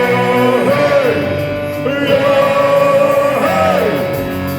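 A song sung with instrumental accompaniment, the singer holding long notes that slide between pitches.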